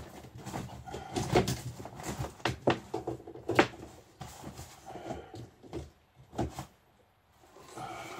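Irregular knocks, clicks and clatter of equipment and cables being handled and moved about behind a workbench, with a short quiet spell near the end.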